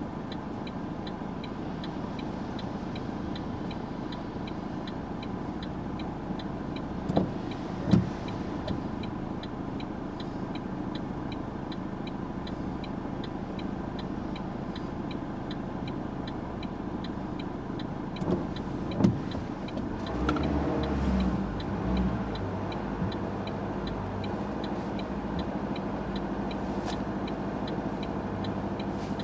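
Bus engine idling in the driver's cab while the turn indicator ticks steadily about twice a second. Two pairs of short dull knocks come partway through, and a louder low rumble of passing traffic swells about two-thirds of the way in.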